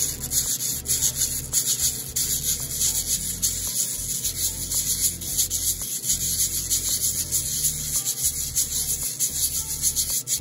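Sterling silver bezel rubbed back and forth on wet/dry sandpaper to sand its edges: a dense, scratchy hiss pulsing with quick strokes, about two to three a second.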